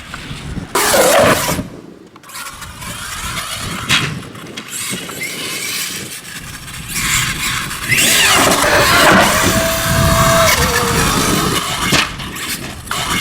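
Traxxas X-Maxx electric RC monster truck driving hard, its brushless motor whining up and down with the throttle over the rattle and grind of the drivetrain and tires on the ground. The loudest run comes in the second half, ending on a held whine that drops away.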